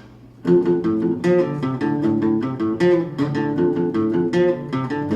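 Guitar playing a song's opening, starting about half a second in with a steady pattern of picked and strummed notes.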